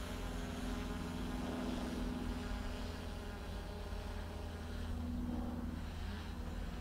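DJI Mavic Pro quadcopter on its original propellers climbing overhead: a steady propeller buzz with a held hum under it.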